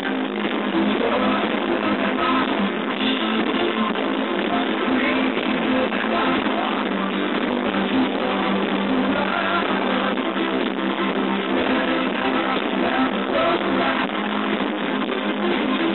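Live rock band playing a song with strummed guitars, recorded from the crowd on a phone, which leaves it thin, with little deep bass and no top end.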